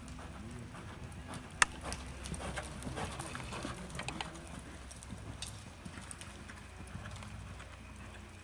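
Hoofbeats of a reining horse loping on soft arena dirt, an uneven run of muffled strikes with a sharp click about a second and a half in, over a steady low hum.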